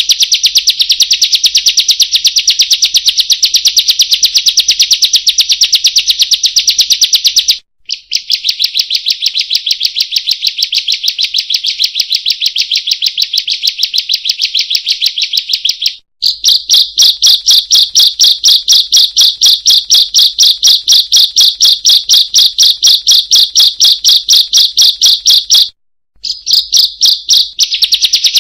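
Ciblek (bar-winged prinia) calling 'kriek-kriek-kriek', a rapid unbroken series of sharp high notes repeated several times a second. The series breaks off briefly about 8, 16 and 26 seconds in, and after the second break the notes come a little slower.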